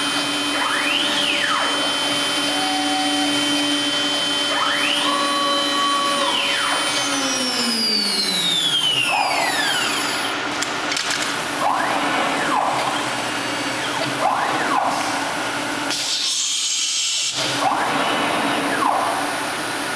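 MultiCam MG Series CNC router moving its gantry and spindle head in quick traverses over a steady mechanical drone. Its axis drives whine up and then back down in pitch with each move. About seven seconds in, a long falling whine winds down, and near the end comes a brief hiss.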